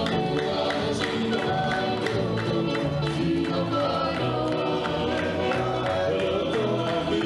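Tongan song sung by a group of voices in harmony, with held notes over a regular percussive beat.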